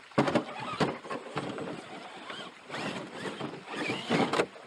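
RC scale crawler truck working over rough, rocky ground: a few sharp knocks in the first second and a half, then irregular scrapes and short bursts of drivetrain noise.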